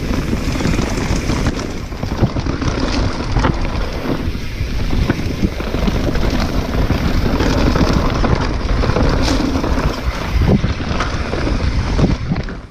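Wind buffeting a GoPro on a YT mountain bike racing down a dirt enduro trail, with the tyres running over dirt and the bike rattling and knocking on bumps.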